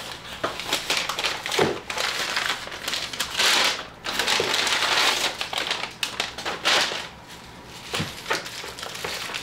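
Parcel packaging being opened and rummaged through by hand: crinkling and rustling with scattered small clicks, loudest from about three to five seconds in.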